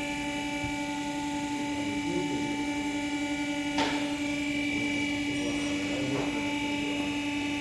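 A steady electric hum holding one pitch, with a single sharp click a little over halfway through.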